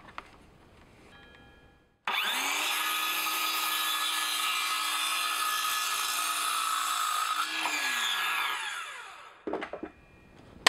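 Circular saw starting up about two seconds in, its motor whine rising quickly and then running steadily while the blade cuts through a cedar fence picket. The trigger is released near the end and the blade spins down with a falling whine, followed by a few light knocks.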